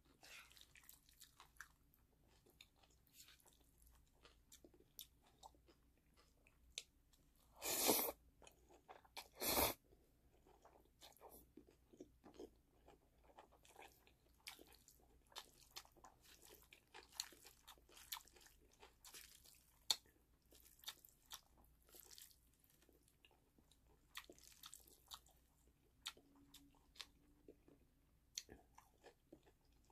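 Close-miked chewing and small wet mouth clicks of a person eating black bean noodles, with two short, louder mouth sounds about eight and ten seconds in.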